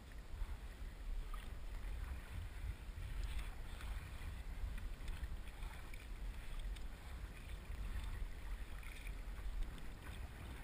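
Kayak paddle blades dipping and splashing lightly in lake water at an uneven stroke rhythm, under a steady rumble of wind on the microphone.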